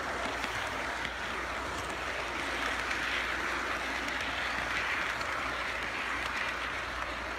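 Model train passenger cars rolling past on the track: a steady rolling noise of small wheels on the rails.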